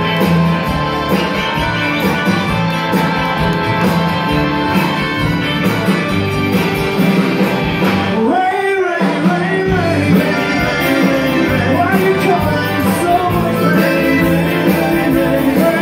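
A live Tex-Mex band plays at full volume, with electric guitars, button accordion, bass, drums and singing. About eight seconds in, the bass and drums drop out for a moment, leaving one wavering held note, and then the full band comes back in.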